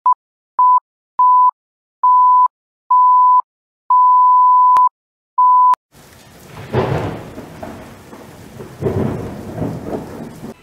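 Film-countdown leader beeps: seven short steady tones at one pitch, the sixth held longest, over the first six seconds. Then a thunderstorm sound effect takes over, rain hiss with two rolls of thunder, about a second and two seconds after it starts.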